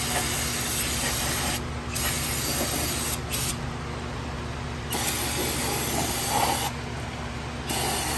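Aerosol cleaner hissing out of a spray can onto a metal oil-separator canister, in several long bursts of a second or more with short pauses between them.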